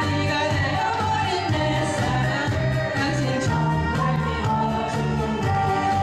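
A song with singing over a backing track with a steady beat.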